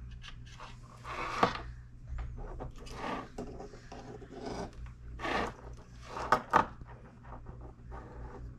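Hands handling wiring and small plastic parts: irregular rubbing and rustling with a few sharp clicks, over a low steady hum.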